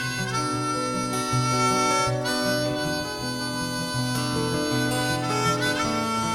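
Instrumental break in a live acoustic pop song: a harmonica plays a melody in long held notes over acoustic guitar and a bass line. It is heard as a 1990s FM radio broadcast recorded onto cassette tape.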